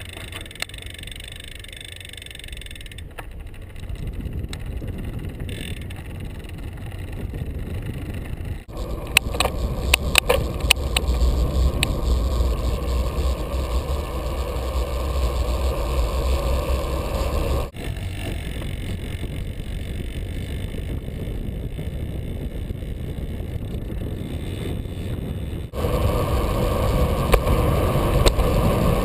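Wind rumbling on the microphone and tyre noise as a bicycle rolls along paved road, with a run of sharp clicks and rattles about nine to eleven seconds in. The sound jumps abruptly in level several times.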